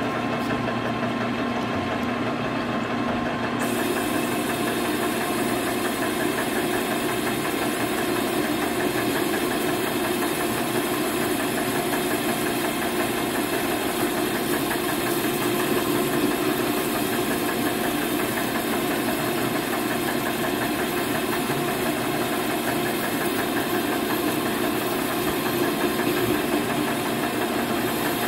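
Metal lathe running steadily under a boring cut, its motor and gear drive giving a constant hum. A brighter hiss joins about three and a half seconds in and stays.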